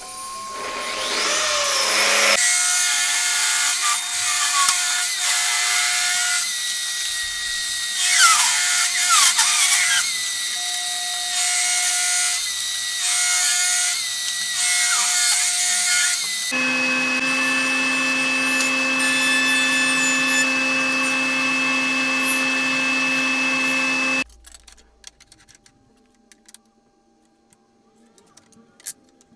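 Portable table saw spinning up and then ripping a wooden board: a steady motor whine under the noise of the blade cutting. About two-thirds of the way through, a different steady machine sound with a lower pitch takes over. It cuts off abruptly, leaving only faint scratching and ticks.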